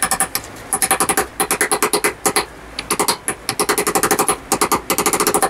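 Rapid light hammer taps, metal on metal, driving a new seal ring into a motorcycle wheel hub through a drift. The taps come about eight a second in quick runs with short breaks, each with a slight metallic ring.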